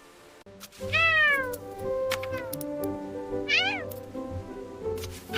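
A cat meowing twice over light background music, about a second in and again past halfway, each call rising briefly and falling in pitch; a third meow begins right at the end.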